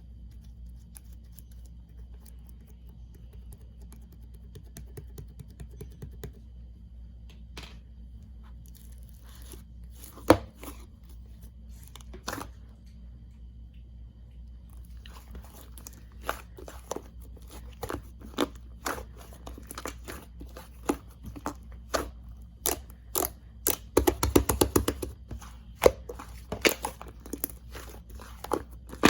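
Yellow clay slime being pressed and worked by hand, making scattered sharp crackles and pops. The pops come much more often from about halfway, with a short burst of rapid crackling near the end.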